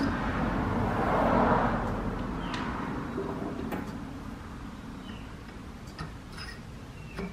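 A rushing noise swells about a second in and fades away over the next two seconds, followed by a few light clicks of a steel shaft, taper pin and cast governor part being handled.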